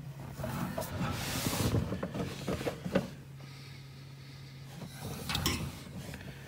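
Hands and a handheld camera rubbing, rustling and knocking against surfaces in a cramped boat bilge compartment, with a low steady hum coming in about halfway through.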